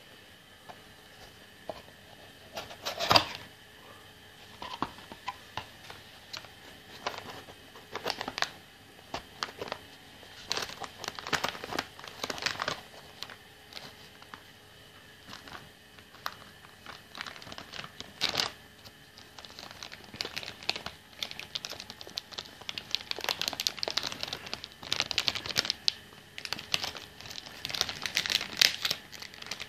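Anti-static plastic bag around a graphics card crinkling as it is handled, with scattered rustles and taps of box packaging. The crinkling grows denser and more continuous in the last third.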